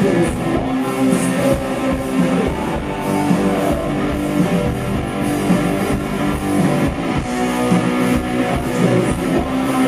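Live rock band playing: strummed electric guitars over a steady drum-kit beat.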